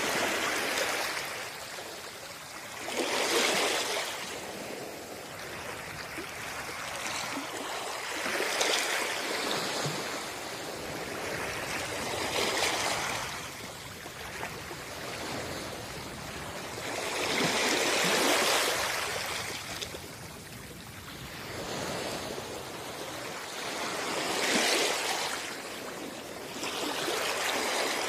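Small waves washing up on a sandy beach, the rush of water swelling and fading every four to six seconds.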